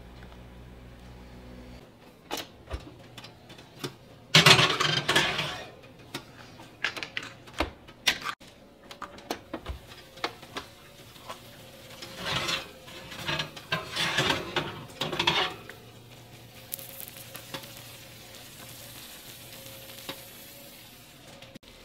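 Kitchen cooking sounds: a utensil stirring, scraping and clicking against a pan, in louder bursts about four seconds in and again around twelve to fifteen seconds, with a light sizzle near the end.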